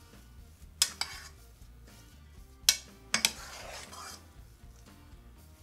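Metal spoon clinking against the side of an enamelled pot while stirring a thick, stiff biscuit-and-chestnut filling: two sharp clinks about a second in, three more around the middle, then about a second of scraping through the paste.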